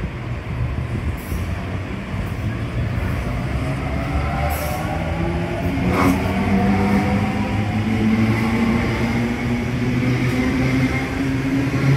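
Electric suburban train running through the station: a steady low rumble, joined about four seconds in by a motor whine that slowly rises in pitch. There is one sharp click about six seconds in.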